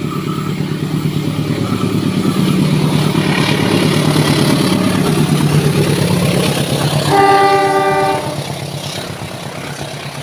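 Indonesian diesel-electric locomotive approaching with its engine running steadily and growing louder. About seven seconds in it gives one horn blast of about a second, sounding several notes together, and then the train sound fades.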